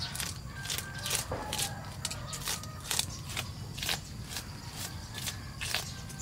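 A series of irregular crisp clicks or snaps, roughly two a second, over a low steady rumble.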